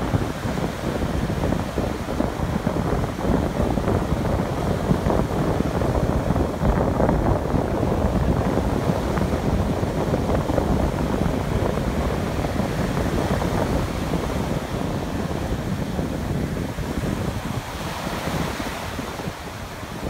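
Ocean surf breaking and washing up a sandy beach in a steady rush, with wind buffeting the microphone. Near the end a wave's foam washes in with a brighter hiss.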